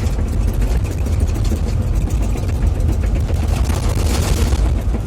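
Excavator's heavy diesel engine running steadily with a deep, low rumble, a brief rise of hiss about four seconds in.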